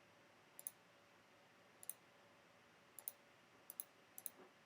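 Computer mouse clicking: about six short, sharp clicks spaced irregularly, a second or so apart, with near silence between them.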